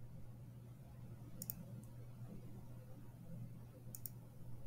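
Two faint computer clicks, each a quick pair of ticks, about two and a half seconds apart, over a low steady hum.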